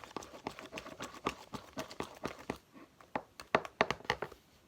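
Homemade slime, activated with contact lens solution, being kneaded and squeezed by hand, giving irregular sharp clicks and pops several times a second.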